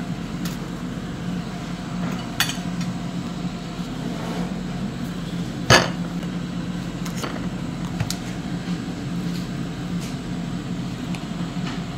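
A few sharp clicks and knocks of plastic cups, skewers and plates being handled on a wooden table, the loudest about halfway through, over a steady low hum in the room.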